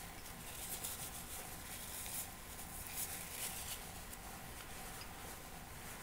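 A person chewing whole-grain rye bread close to the microphone, an irregular dry, scratchy chewing sound.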